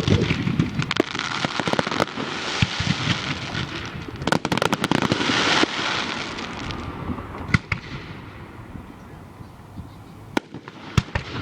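Fireworks going off: a dense run of crackling and popping for the first six seconds or so, then dying down to a few scattered sharp bangs.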